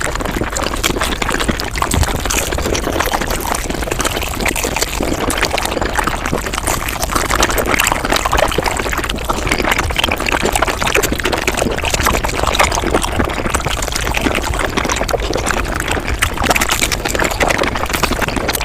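Mukbang eating sounds sped up five times: a dense, continuous rush of chewing and wet mouth clicks that runs together into a liquid-like crackle.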